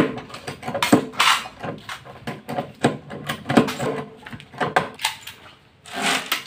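A hand pop-rivet gun being squeezed again and again, giving a run of sharp metallic clicks and clacks as pop rivets are set into a hardcase lid.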